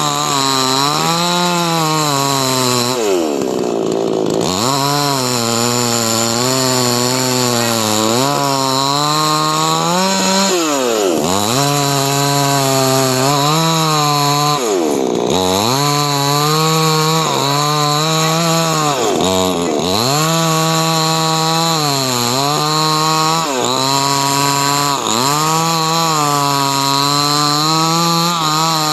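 Chainsaw engine running at high revs while cutting wood, its pitch wavering under load. Several times the revs drop sharply as the throttle is eased, then climb straight back up.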